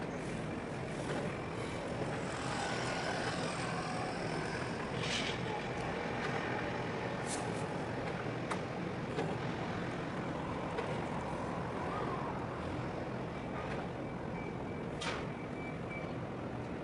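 Container-terminal ambience: a steady low engine hum under broad rumbling noise, with a few short sharp hisses and scattered clicks. A faint broken beeping comes in near the end.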